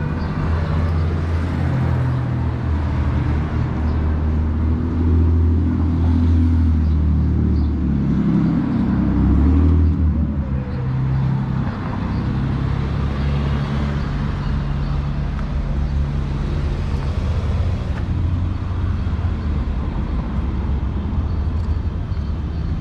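A motor vehicle's engine running close by, a steady low hum that swells and shifts in pitch about nine seconds in, then settles back to a steady run.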